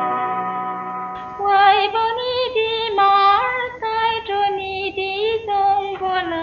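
A sustained instrumental note fades out about a second in. A woman then sings a slow melody alone, with strong vibrato and short breaks between phrases.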